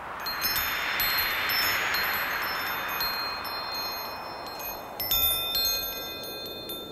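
Wind chimes ringing, many high notes coming in one after another, over a whoosh that swells and fades in the first few seconds; more chime notes come in about five seconds in.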